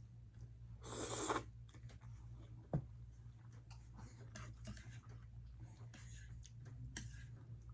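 Quiet eating sounds from a mukbang meal of ramyun noodles: a short noisy rush about a second in, one sharp knock a little later, and soft mouth clicks and chewing, over a low steady hum.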